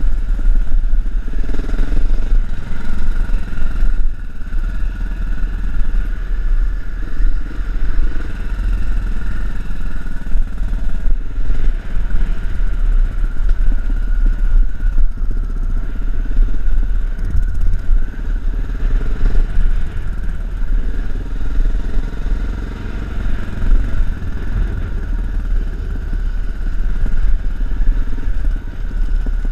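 Dirt bike engine running as the bike is ridden along a rough dirt trail, heard from the rider's helmet camera, with a heavy low rumble and a steady mid-pitched engine note.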